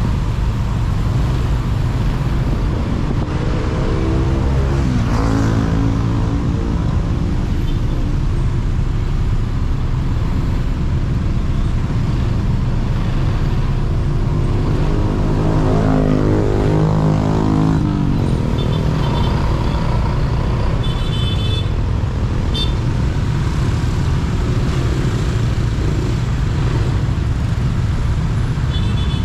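Motorcycle ridden through slow city traffic: steady engine and road rumble. The engine pitch rises and falls about five seconds in and again around sixteen seconds, and a few short high beeps sound after about nineteen seconds.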